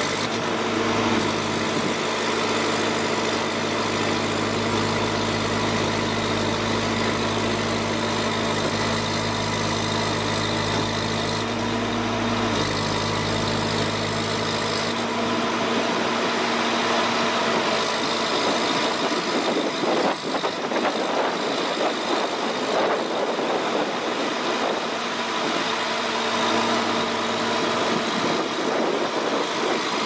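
MAN 480 hp truck engine running steadily, the engine that drives a drum wood chipper. About halfway through the sound shifts and its low hum thins out.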